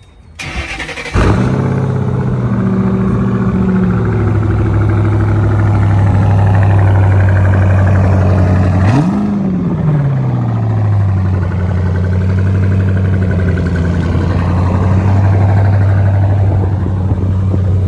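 Car engine cranking and catching, then idling fast before settling to a lower idle. One throttle blip about nine seconds in rises and falls back, and the engine then idles steadily.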